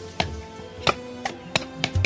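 Background music with steady held notes, over about five sharp, irregularly spaced knocks like chopping.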